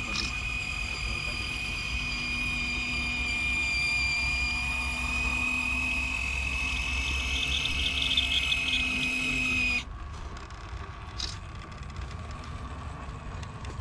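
Small electric winch motor on a radio-controlled scale crawler truck, whining steadily at a high pitch as it reels in its line to haul the truck up a sand slope. The whine cuts off abruptly about ten seconds in, leaving a faint low rumble.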